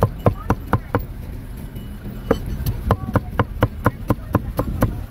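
Knife chopping grilled pig head meat against a large metal pan: a short run of sharp chops, a pause of about a second and a half, then rapid steady chopping at about five strokes a second.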